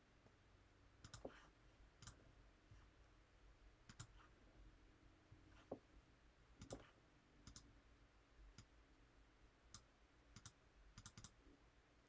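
Faint computer mouse clicks, about a dozen scattered irregularly over a low room hum, some in quick pairs.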